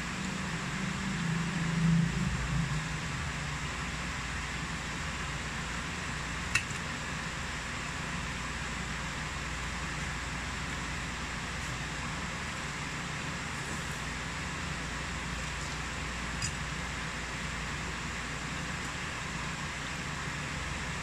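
Steady background hiss with a low hum, like a fan running, with a louder low stretch about two seconds in and a single sharp click about six and a half seconds in.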